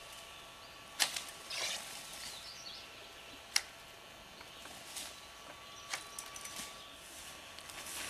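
Woody twigs and branches snapping sharply, two loud snaps about one and three and a half seconds in, with a short rustle of brush and a few quieter snaps later.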